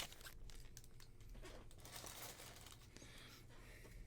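Faint crinkling and rustling of baseball card packs and cards being handled.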